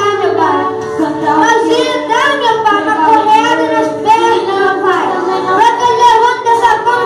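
A boy and a girl singing a worship song into microphones through the church's sound system, with steady musical accompaniment underneath.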